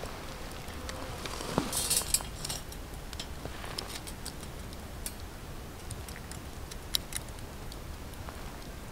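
Light metallic clinks and scattered ticks as a wire grill basket holding a trout is handled and set over campfire embers, with a brief louder rustle about two seconds in.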